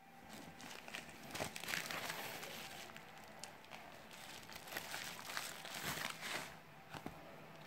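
Plastic mailer envelope crinkling and rustling in irregular bursts as it is handled and pulled open by hand.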